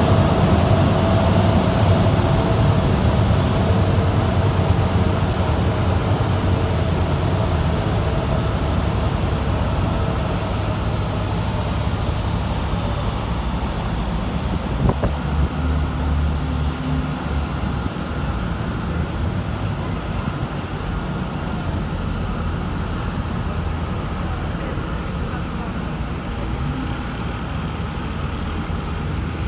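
Steady mechanical drone of aircraft and ground equipment on an airport apron: a deep rumble with a low, even hum that eases off about a third of the way through. Near the middle there is a single knock and a brief swell of the low rumble.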